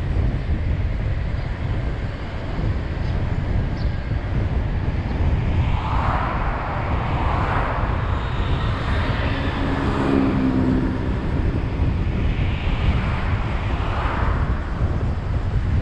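Steady road and tyre rumble of a car driving through town, with other vehicles swelling past a few times, one carrying a low engine hum near the middle.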